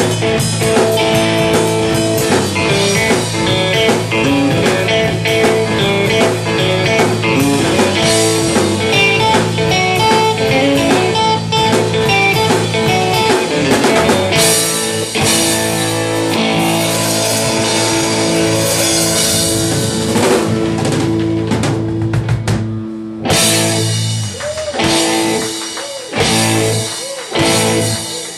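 Blues band playing live: guitar over a drum kit, steady and full. Near the end the playing breaks into short stop-and-start phrases with bent, wavering guitar notes.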